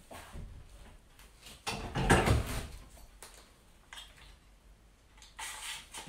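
Bar clamp being handled and fitted against the wooden boards: a rough burst of knocking and scraping about two seconds in, a few light clicks, and a shorter scrape near the end.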